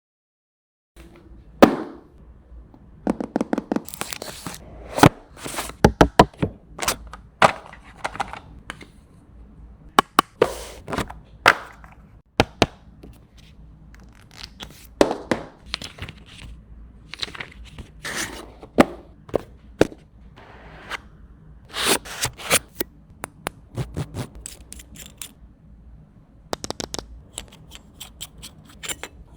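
Packaging and accessories being handled and opened during an unboxing: irregular sharp clicks, taps and knocks of cardboard and plastic parts, with short rustles in between.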